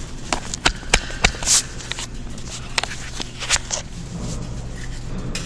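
Handling noise on the camera itself: irregular clicks, knocks and rubbing as it is gripped, moved and taken down, over a steady low hum.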